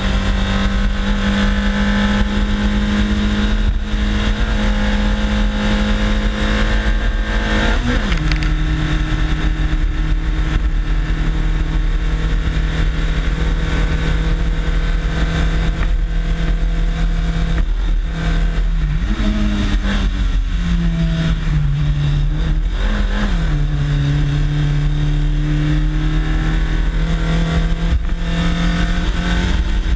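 Competition car's engine running hard under load on a hill climb, picked up close at the car's bumper over steady road and wind rumble. About eight seconds in the engine note drops sharply with a gear change, and between about 18 and 23 seconds the revs drop and pick up again several times.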